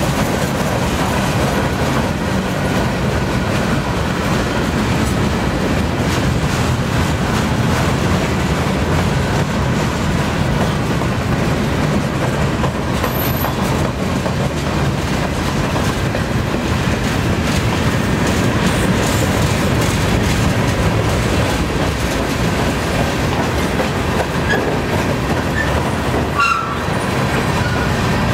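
Freight cars of a CN train, boxcars and covered hoppers, rolling past close by: a steady rumble of steel wheels on rail with clickety-clack over the rail joints.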